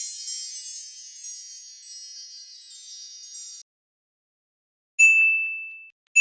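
A high, shimmering run of chimes that thins out and stops about three and a half seconds in. After a short silence a single bell-like ding sounds near the end and fades over about a second.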